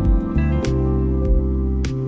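Background music: a gentle, new-age-style instrumental with plucked guitar notes over sustained low tones.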